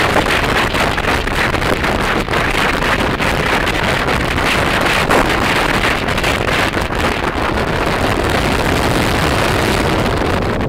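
Wind rushing and buffeting on the microphone of a phone carried on a moving motorbike: a loud, steady roar with rapid flutter.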